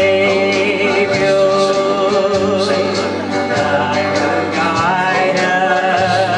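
Country gospel song: a woman singing into a microphone over instrumental backing music.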